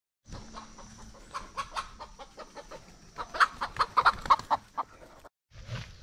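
Chickens clucking: a run of short, repeated calls that grows louder about three seconds in and cuts off suddenly a little after five seconds.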